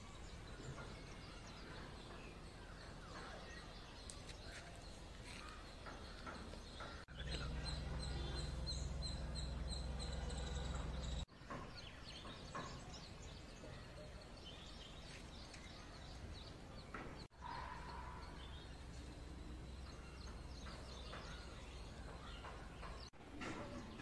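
Small birds chirping and calling over faint outdoor background noise. The sound is split by several abrupt cuts between short clips, and one few-second stretch carries a louder low rumble on the microphone.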